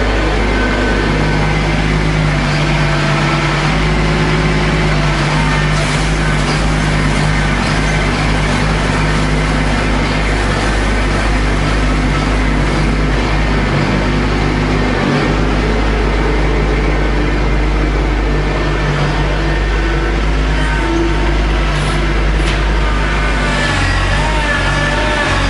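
Compact tractor with a front-end loader, its engine running steadily as it drives around on the gravel floor inside a metal barn, with a few brief clatters near the end.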